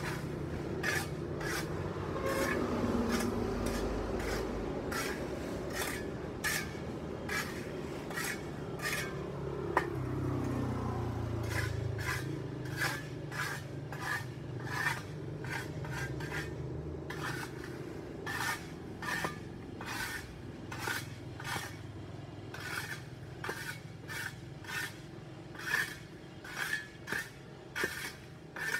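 Hand tool scraping dirt off paved sidewalk in short, repeated strokes, about two a second. A vehicle passes in the background during the first half.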